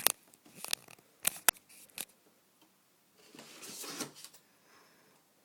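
Handling of a plastic Smith & Wesson M3000 airsoft shotgun: about five sharp clicks in the first two seconds, then a short scraping rustle about three seconds in.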